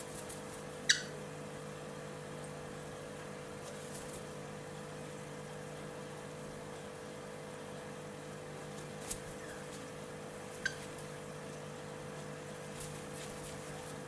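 Cockatiel giving a few short, sharp chirps that sweep downward in pitch, the loudest about a second in and a smaller one past the middle, over a steady electrical hum.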